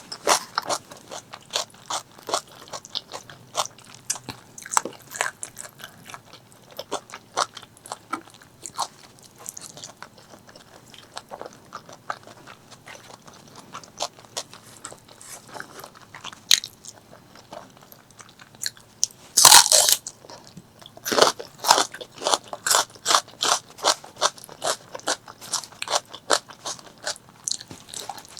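Close-miked eating of spicy pork leg curry with rice: steady chewing and biting, with many quick wet clicks and smacks. One louder crunching burst comes about two-thirds of the way in, followed by a busier run of bites.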